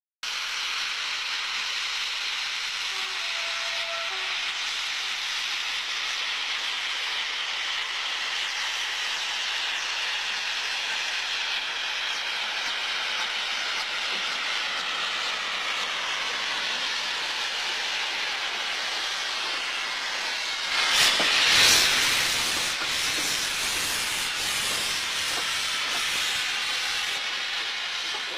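Pinguely 'bicabine' steam locomotive no. 31 hissing steadily as it moves slowly along, venting steam low at its wheels. About three-quarters of the way through, the hiss swells to its loudest and fills out with a low rumble as the engine passes close by.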